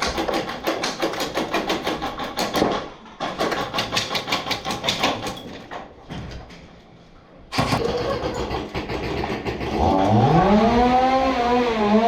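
Airsoft electric rifles firing on full auto, two bursts of about ten shots a second. After a pause, a humming tone with a sudden noisy onset rises and falls in pitch near the end.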